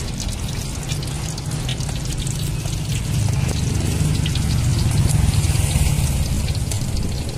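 Hot cooking oil crackling and sizzling in a wok as food deep-fries, many small pops over a continuous low rumble.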